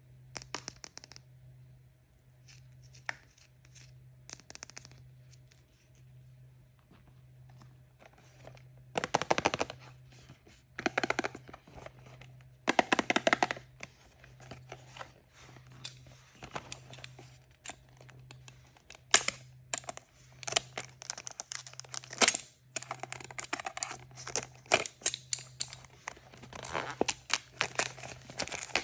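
Surprise-toy packaging being torn open and crinkled by hand. A few soft handling noises come first, then several tearing strokes, and then a long run of crinkling and crackling near the end.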